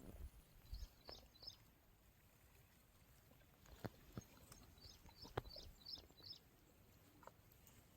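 Near silence with faint, high chirps from a small bird in short runs of four or five, about a second in and again past the middle, and a few soft knocks.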